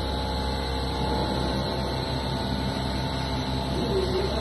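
Plastic net extrusion machine running: a steady mechanical hum with a strong low drone and several steady tones above it.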